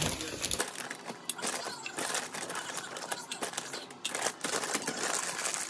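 Plastic bag of frozen berries crinkling and rustling as it is handled and tipped, with a dense run of small irregular crackles and clicks throughout.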